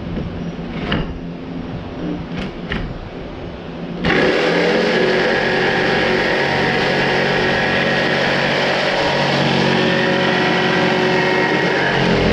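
Corded jigsaw cutting through a sheet of plywood, its blade running steadily. It gets much louder about four seconds in as it bites into the cut, and stops right at the end.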